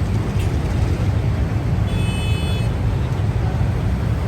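Steady low rumble of a motor vehicle and road traffic, with a brief high-pitched tone about two seconds in.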